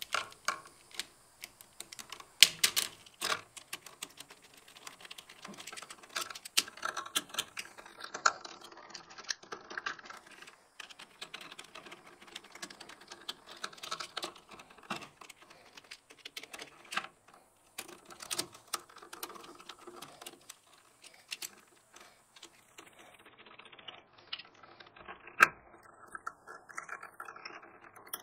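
Irregular light clicks and ticks of hands working stripped electrical wires and a plastic duplex outlet, bending the wire ends into hooks for the outlet's screw terminals. A sharper click comes about two and a half seconds in and another near the end.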